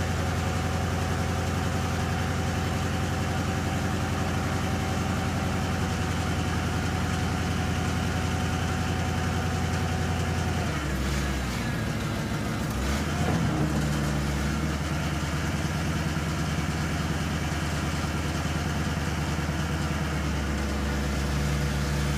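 Chevrolet 5.7-litre V8 of a rollback tow truck idling with the PTO engaged, driving the hydraulics that tilt and slide the Jerr-Dan bed. A thin steady whine runs through the first half and stops about halfway, where the engine note briefly changes and then settles again.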